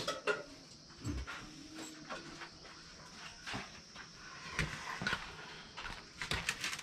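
Steel plates and kitchen utensils clinking and knocking lightly as rotis are served onto a plate. The clicks come in scattered groups, busiest in the last couple of seconds.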